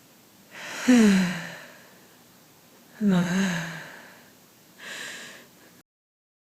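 A woman breathing deeply: two long exhales voiced as sighs that fall in pitch, about a second in and about three seconds in, then a softer breath near the end. The sound cuts off abruptly into silence shortly before the end.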